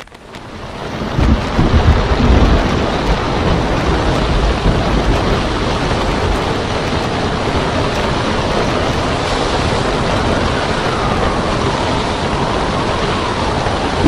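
Storm wind blowing hard on the microphone over heavy surf crashing on a rocky shore, a dense, steady rushing noise with a deep rumble that fades up over the first second or so.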